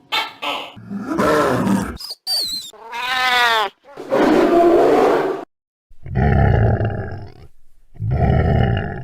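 A string of separate edited animal roars and calls with short gaps between them: a brief high whistling glide, a call with a wavering pitch, then several longer low roars.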